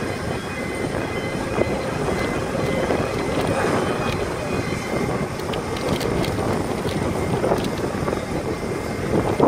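Steady rushing noise of a parked Boeing 787-8 airliner, with a faint high whine, mixed with wind on the microphone.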